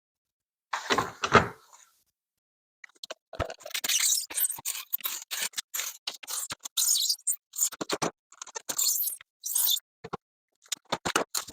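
Long-bladed knife cutting through 1-inch polyiso foam board along a level: a run of short, irregular scraping strokes. A few knocks as the tools and board are handled, the sharpest about three and a half seconds in.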